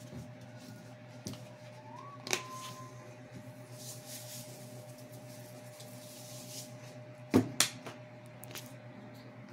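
Steady low hum in a small room, broken by a few sharp knocks. The two loudest come close together about three-quarters of the way through, with a brief whistle-like tone about two seconds in.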